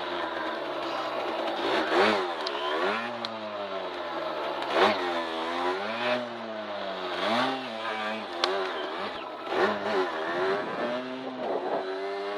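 Derbi 50cc two-stroke motorcycle engine revving up and down over and over, the throttle worked in short swells every second or two. There is one sharp click about eight seconds in.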